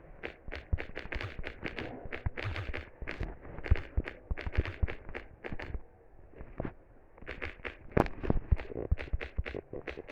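A rapid, irregular run of sharp clicks and knocks with low thuds, several a second, thinning out for a moment about six seconds in before picking up again.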